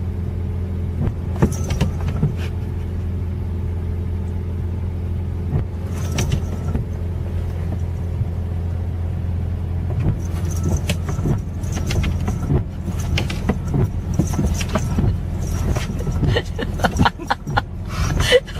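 A vehicle engine running steadily with a low, even hum, with scattered light clicks and rattles that become busier in the second half.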